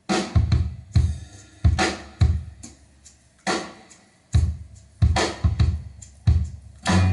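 A song's drum intro played back through Pioneer CS-701 loudspeakers driven by a Revox A78 amplifier: kick and snare hits on a slow, steady beat, with guitar coming in near the end.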